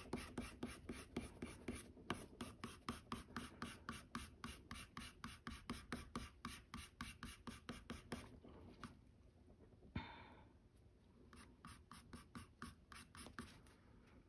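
Colored pencil scratching on toned tan mixed-media paper in quick, even back-and-forth shading strokes, about three or four a second. After about eight seconds the strokes thin out to a few fainter ones, with a single light tap about ten seconds in.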